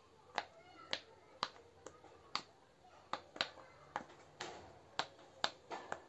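Silicone push-pop fidget ball having its bubbles pressed through by fingers, each one popping with a sharp snap, about a dozen pops at roughly two a second.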